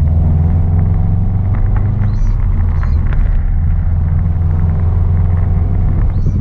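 Subaru WRX's turbocharged flat-four engine running steadily: a low, even rumble.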